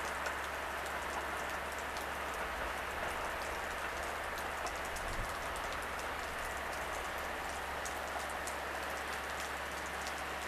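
Diesel railcars moving slowly through station tracks: a steady low engine rumble under an even hiss, with faint scattered ticks. The rumble swells briefly near the middle.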